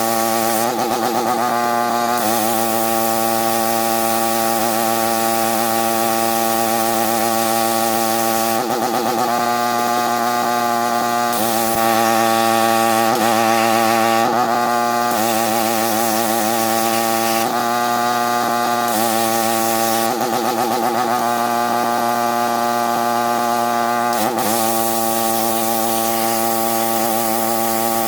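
Pressure washer running steadily with a slurry-blaster attachment, a steady motor hum under the hiss of the high-pressure water-and-sand jet, the hiss changing every few seconds.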